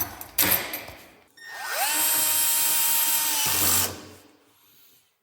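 A few clicks, then a power tool's motor spins up to a steady high whine, runs for about two seconds and winds down.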